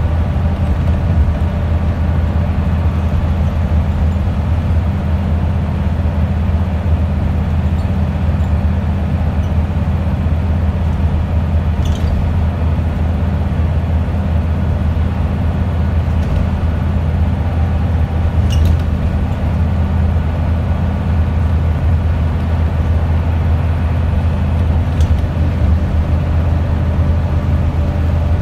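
Wright Scania Solar single-deck bus driving along at a steady speed, heard from inside the passenger saloon: a steady low engine drone with road noise, and a few faint clicks.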